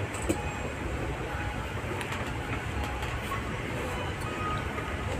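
Steady low background rumble with no distinct events apart from a faint click about a third of a second in.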